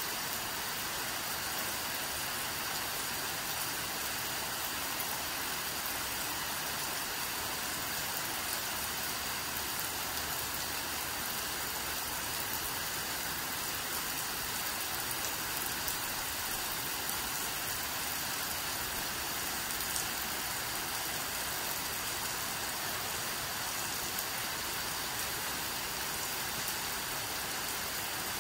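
Steady rain falling at night: an even, unbroken hiss of rain on surfaces.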